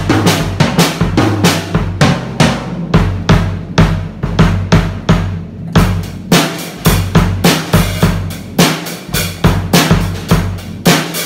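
Early Taiwan-made Lazer acoustic drum kit played in a steady beat: a 22-inch bass drum, 14-inch snare and toms, with cymbal wash over the strikes.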